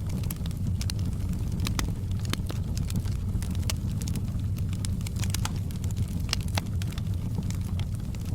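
Wood fire in a fireplace burning steadily: a constant low rumble of flames with frequent sharp, irregular crackles and pops.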